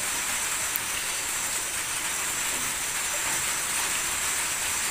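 A steady hiss of background noise at an even level, with no distinct sounds standing out.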